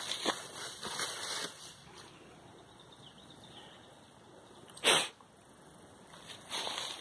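Footsteps in dry leaf litter, then a quiet stretch, then a single short sharp burst like a sneeze about five seconds in, the loudest sound. The footsteps in the leaves start again near the end.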